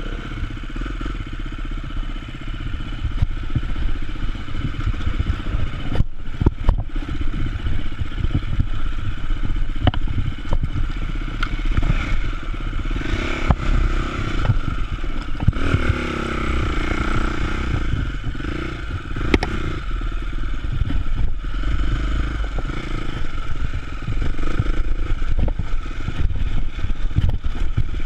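An enduro motorcycle engine running as the bike is ridden over a rough dirt and rock trail, its revs rising and falling with the throttle. Sharp knocks and clatter come from the bike jolting over the ground.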